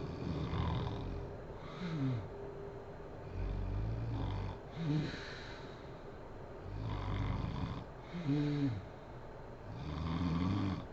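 A woman snoring in her sleep: three long, low snores a few seconds apart, with short pitched sounds between them that bend in pitch.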